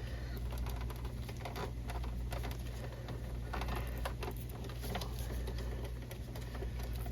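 Irregular light clicks, taps and rattles of a UPS battery pack and its plastic compartment being handled as the batteries are worked out of the unit.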